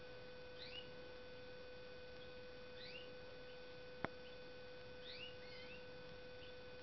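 Caged goldfinch × European serin hybrid giving a handful of faint, short rising chirps, a second or two apart, over a steady electrical hum. A single sharp click about four seconds in.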